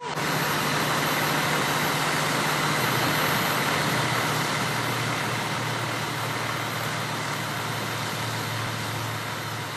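A vehicle engine idling steadily, a low hum under an even hiss.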